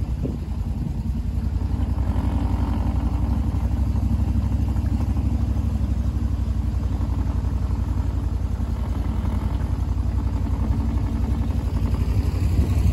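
A duck boat's motor running steadily as the boat moves along a marsh channel: a low, even engine drone with a fast regular pulse.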